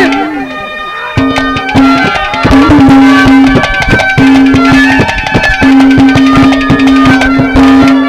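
Ragni accompaniment playing an instrumental interlude between sung lines: rapid hand-drum strokes over a steady held melody note that stops and starts again several times. The music is quieter for the first second, then comes in full.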